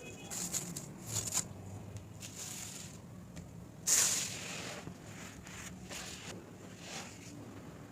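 Something dry being crumbled, crackling in irregular bursts, the loudest about four seconds in.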